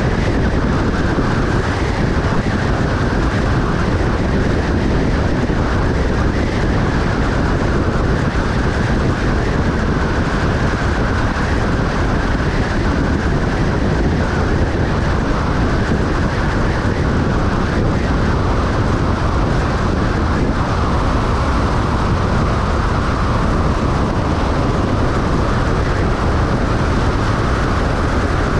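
Steady road and wind noise of a vehicle driving along a highway, tyres on pavement and air rushing past, with no changes.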